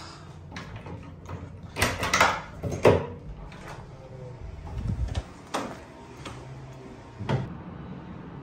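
A handful of sharp knocks and clunks, loudest in a cluster about two to three seconds in, with a low rumble a little after the middle.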